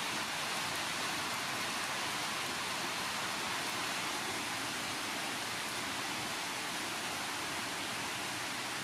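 Steady rain falling on foliage, an even hiss.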